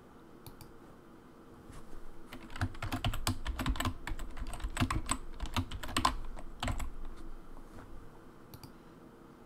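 Computer keyboard typing: a password being keyed in as a quick run of key clicks. A few scattered clicks come first, then the typing runs steadily from about two seconds in until it stops near the end.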